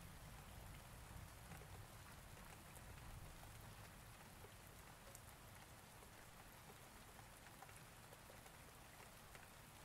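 Near silence: a faint, steady hiss with scattered light ticks.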